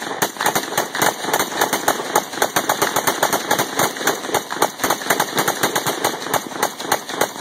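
Two AK-pattern rifles firing fast together, a dense, uneven string of overlapping shots with no pause.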